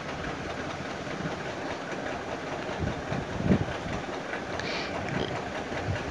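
Wire whisk stirring and scraping damp gram-flour mixture in a plastic bowl: a steady scratchy rustle with a few soft knocks against the bowl.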